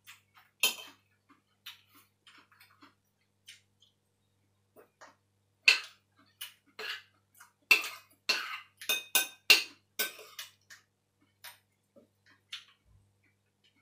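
Spoon and fork clinking and scraping against a bowl as a noodle salad is tossed: scattered clicks, then a quick run of louder clinks in the middle.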